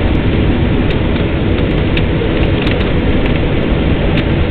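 Loud, steady rush of jet engine and airflow noise heard inside the cabin of an Airbus A321-100 on final approach, moments before touchdown.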